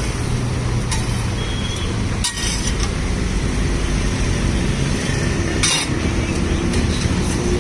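Steady road traffic noise with a few short clinks, one about two seconds in and another near six seconds.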